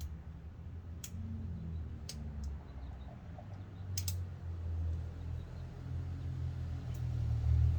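Sharp clicks of brake pad hardware being handled, five or six spread out with a close pair about four seconds in, over a steady low rumble.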